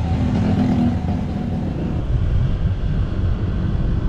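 Motorcycle running on the road, a steady low engine hum mixed with wind and road noise.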